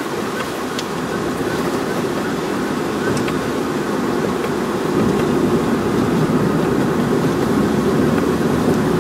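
A moving vehicle with a steady rush of road and wind noise, growing a little louder about five seconds in.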